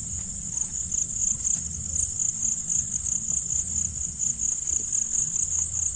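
Crickets chirping in a steady high trill, over a low rumble.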